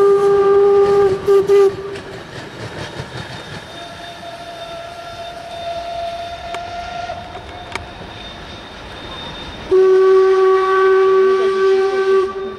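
Steam locomotive whistle: a long steady blast that stops about two seconds in, and another long blast starting about ten seconds in, over the rattle of vintage passenger coaches rolling past.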